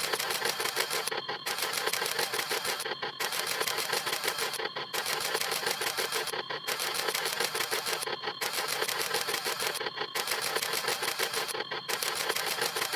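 Camera shutter snap sound effects repeating rapidly in a dense run of clicks, with a brief break about every second and a half to two seconds.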